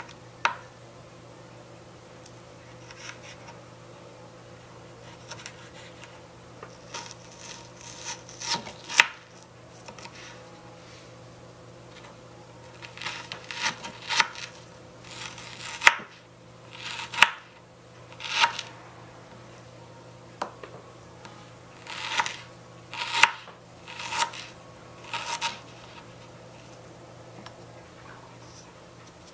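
A small knife cutting cherry tomato and raw chicken breast on a miniature wooden cutting board: irregular short slicing strokes and taps of the blade on the board, coming in clusters.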